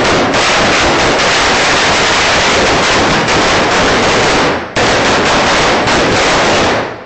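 A string of firecrackers going off in very rapid succession, loud, the cracks so close together that they run into one long crackle like machine-gun fire. It breaks off for a moment about two-thirds through, then picks up again and dies away just before the end.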